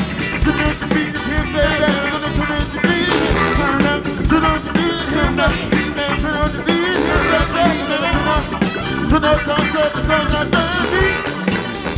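Live band playing an upbeat song, with guitar over a steady drum beat.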